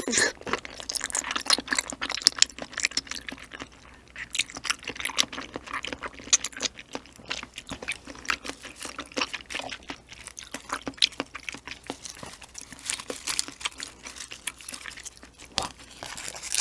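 Close-miked ASMR eating: a person chewing slippery ocean sunfish jelly, a steady stream of short wet mouth clicks and smacks.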